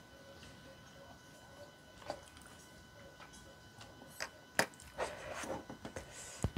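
Eating and utensil sounds: a few sharp clicks, the loudest about four and a half seconds in, as a wooden skewer of folded fish cake (eomuk) knocks against the bowl while being lifted out of the broth, followed by a quick run of small clicks and rustling near the end.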